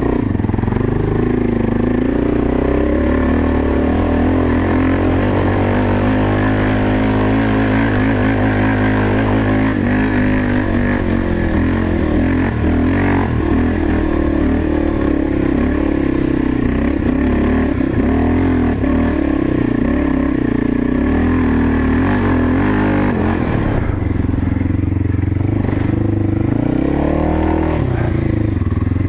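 Honda XR600R's single-cylinder four-stroke engine working hard under load up a steep dirt hill, its revs rising and falling with the throttle.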